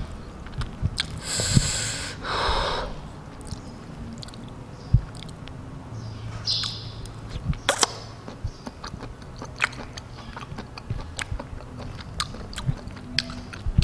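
Close-miked eating: metal tongs clicking and scraping against a plate of rice, instant noodles and omelette, with chewing in between. A longer rustling burst comes about a second in, a shorter one near the middle, and sharp clicks recur throughout.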